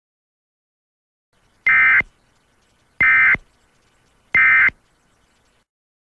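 Emergency Alert System end-of-message signal: three short bursts of screeching digital data tones, about a second and a third apart, marking the end of the alert.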